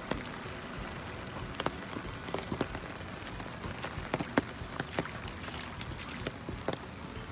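Heavy rain falling, a steady hiss with big drops ticking sharply and irregularly on the umbrella held over the phone.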